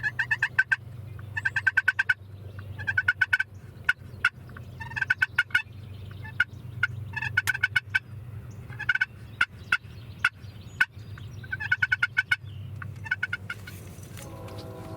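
Wild turkeys gobbling again and again, each gobble a quick rattling burst, with a new one every second or two.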